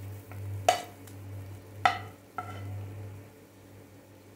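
A spoon scooping thick prawn gravy out of the cooking pan, scraping and knocking against the pan three times with short ringing clinks.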